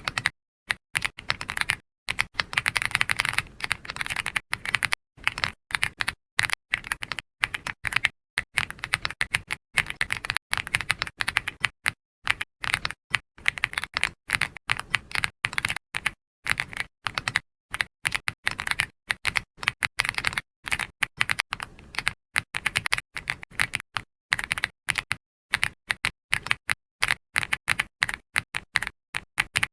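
Soft typing on a computer keyboard: quick runs of keystroke clicks broken by many short pauses.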